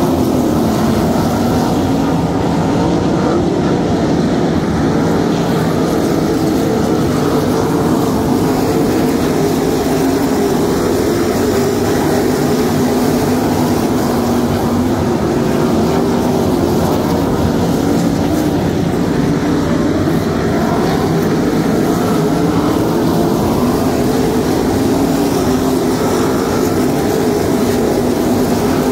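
A field of winged 305 sprint cars racing on a dirt oval, their 305-cubic-inch V8 engines running together in a loud, continuous drone whose pitch wavers as the cars circle the track.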